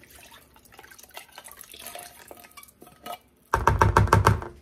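Water poured from a tomato soup can into a mixing bowl, with a spatula scraping and clicking inside the metal can to rinse out the leftover soup. Near the end comes a rapid run of about ten loud knocks.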